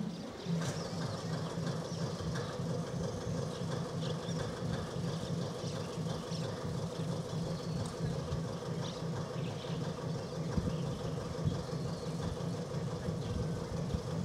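Diesel engine of a Kominato Railway railcar starting up about half a second in, then idling steadily with a low hum, amid what the uploader suspects is engine trouble.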